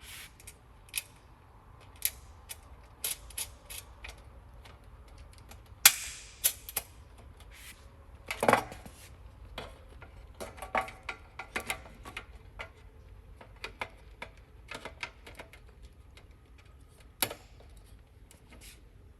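Irregular sharp clicks and knocks of small metal hardware being handled and fitted, with a few louder clacks about six and eight and a half seconds in: machine screws and nuts being put through a desk bracket by hand.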